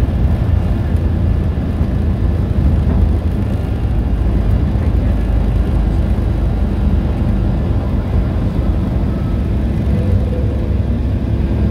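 Cabin noise of a Boeing 757 climbing out just after takeoff: a steady, deep rumble of its twin turbofan engines at climb power, heard inside the passenger cabin.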